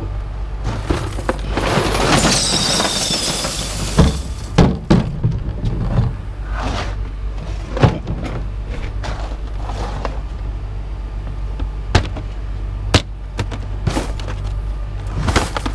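Scrap steel being handled and loaded: irregular metal clanks and bangs, with a stretch of metal scraping and squealing about two seconds in, over a steady low hum.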